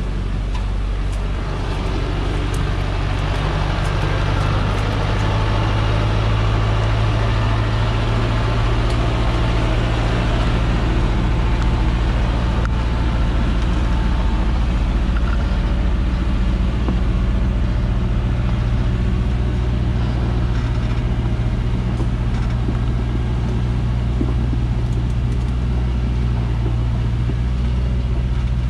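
Diesel engine of a loaded Dongfeng log truck running steadily under load at low speed, a deep constant drone, as the truck crawls up a steep rocky track. The engine grows a little louder a few seconds in.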